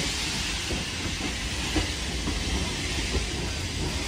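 West Coast Railways passenger coaches rolling slowly past a platform: a steady low rumble of wheels on the rails, with a couple of sharp clicks, over a constant hiss.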